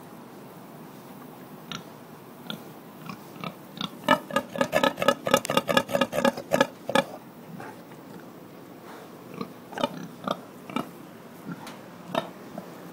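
Mangalitsa sow grunting close up while nest-building. There is a rapid run of short grunts, about four or five a second, for roughly three seconds in the middle, with scattered single grunts before and after.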